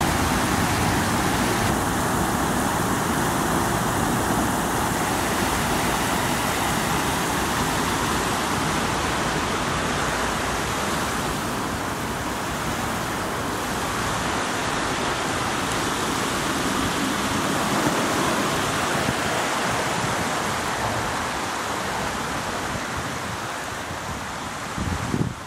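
Steady outdoor rushing noise with no distinct events, with a slight dip in level near the end.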